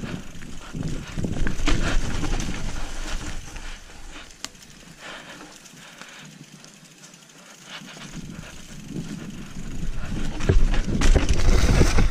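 Trek Remedy 7 full-suspension mountain bike riding down a trail: tyre noise on the ground with many knocks and rattles from the bike, over a low rumble. It is loudest in the first few seconds and again near the end, quieter in the middle.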